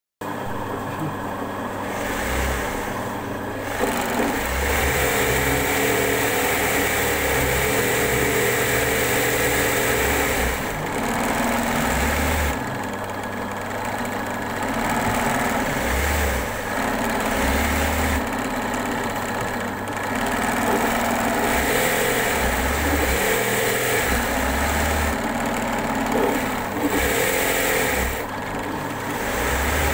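A motor or engine running steadily, its pitch and loudness rising and falling every few seconds.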